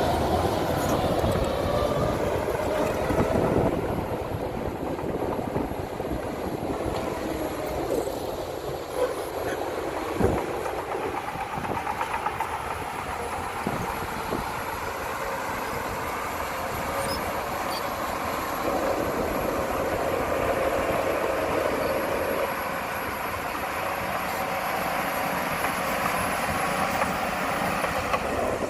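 Heavy earthmoving machinery at work: a diesel engine running steadily, with a sharp knock about ten seconds in.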